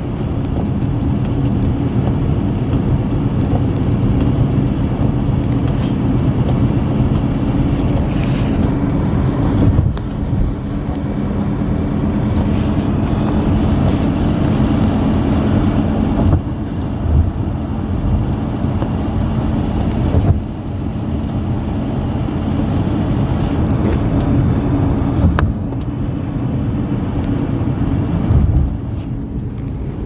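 Steady road and engine noise inside a moving car's cabin, its tyres running on a snow-covered highway, with a couple of brief louder hisses about eight and twelve seconds in.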